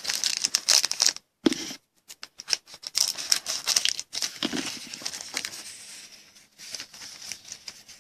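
Crinkling and tearing of a plastic trading-card pack wrapper being handled and opened, in irregular crackly bursts with two brief silent gaps between one and two seconds in.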